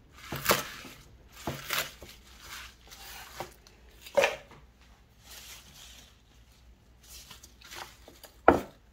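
Kitchen knife chopping radish greens on a wooden cutting board: irregular, spaced-out knocks of the blade through the stems onto the board, the loudest about four seconds in and near the end.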